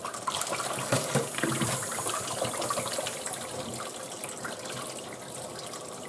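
Cold tap water running and splashing over the lid of a Soffritto stovetop pressure cooker in a sink, the cold-water method of cooling it down to release the pressure after cooking. A few light knocks in the first couple of seconds as the pot is handled.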